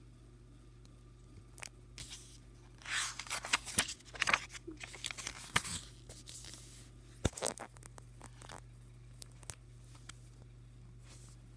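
Paper pages of a graphic novel being turned and handled: a run of rustling swishes and small clicks, busiest a few seconds in, then a few light ticks.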